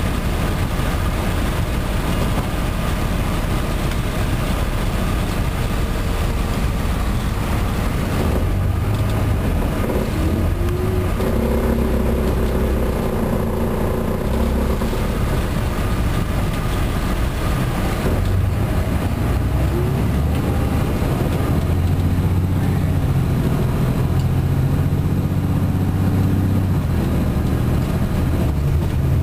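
Cummins ISM diesel engine of a 2010 MCI D4500CT coach, heard from inside the cabin. It idles steadily at first, then pulls away about eight seconds in, and the engine note changes pitch several times as the coach gathers speed.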